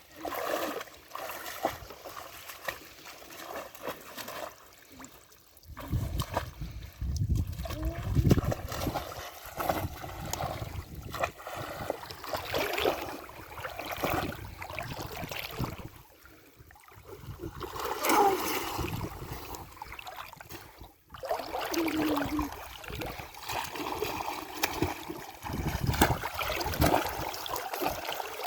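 Pond water splashing and trickling in irregular surges, with stronger sloshing about six to nine seconds in and again near the end.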